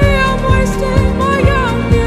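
Background pop song: a melody line gliding over a steady kick-drum beat, about two beats a second.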